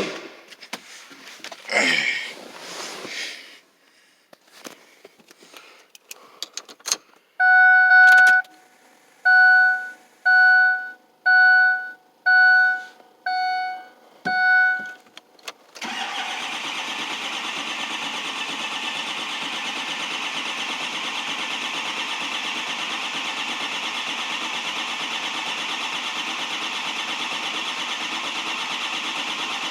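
A few clicks and knocks, then a vehicle's warning chime dinging about once a second, seven times. About halfway in, a 6.0 Powerstroke diesel starts cranking on the starter, steady and continuous, without catching: the crank-no-start fault.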